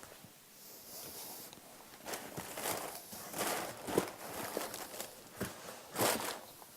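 Paper rustling and handling knocks as paper-wrapped grandfather-clock weights are packed into a paper-lined box. The loudest knocks come about four and six seconds in.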